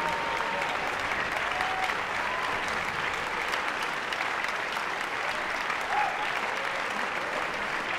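Audience applauding steadily: a dense, even clatter of many hands clapping.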